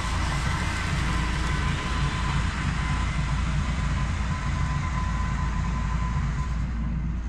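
Ventrac compact tractor running steadily with its Tough Cut brush-cutter deck engaged, mowing overgrown grass: a steady engine drone with a thin whine over it. The higher hiss drops away near the end.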